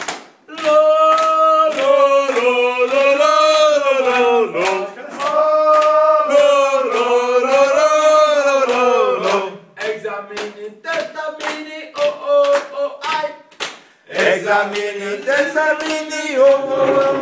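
Men's choir singing a chant together while clapping their hands in rhythm. Long, sliding sung phrases give way to short, clipped ones about ten seconds in, and longer notes return near the end.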